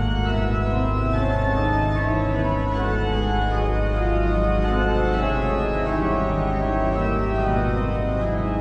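Pipe organ music: shifting chords held over a steady low pedal note.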